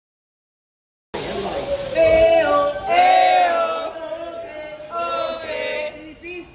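About a second of dead silence at an edit, then singing voices holding long, sliding notes.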